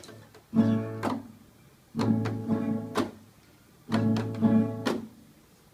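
Guitar strumming blues chords, each one struck sharply and left to ring out, about one every second with short quiet gaps between them.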